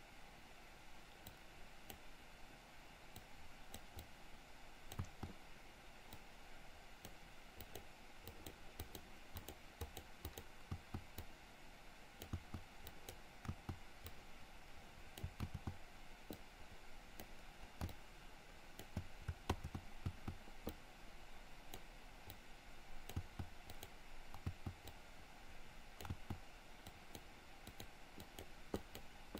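Irregular clicking of a computer mouse and keyboard, some clicks with a soft low thump, over a faint steady background hum.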